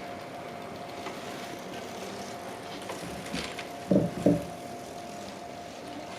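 Railway level-crossing warning alarm sounding steadily, with two short, loud horn blasts about four seconds in as a train approaches the crossing.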